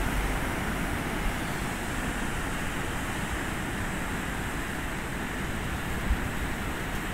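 Heavy ocean surf breaking and washing up the beach, a steady rushing noise, with two brief low bumps about a second in and near the end.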